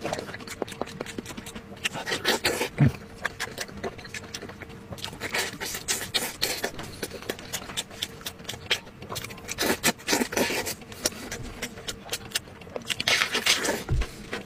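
Close-miked eating: wet chewing and lip smacking while gloved hands pull apart soft braised pork skin and meat, many small irregular clicks.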